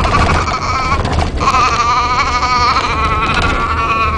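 A young child making a long, wavering vocal noise: one held note breaks off about a second in, then a second one is held for about three seconds. Underneath is the steady low rumble of an off-road vehicle.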